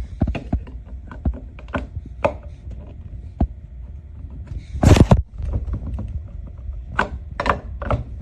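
A run of small knocks and clicks over a low steady hum, with one louder noisy burst of about half a second near the middle.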